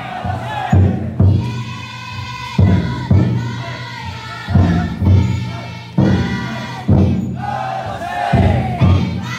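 The big taiko drum inside a futon daiko festival float, beaten in pairs of heavy strokes about every two seconds. Between the strokes a crowd of bearers chants and shouts.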